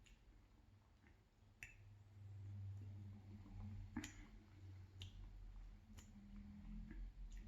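Near silence with a few faint clicks about a second apart, mouth and swallowing sounds as a green apple malt drink is sipped.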